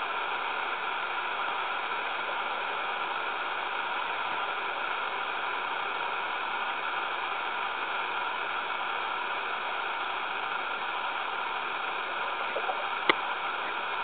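Steady, even hiss of a camera recording underwater, with one sharp click near the end.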